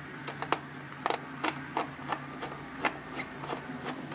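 Small precision screwdriver turning a screw into an aluminium case, giving a run of small irregular clicks, about two or three a second, over a low steady hum.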